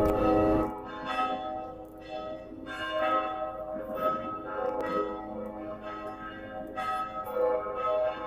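Church bells ringing, struck roughly once a second, each stroke ringing on into the next. The first stroke is the loudest.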